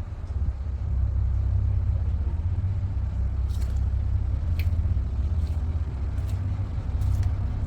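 Steady low rumble of a vehicle engine heard from inside the cab, with a few faint clicks.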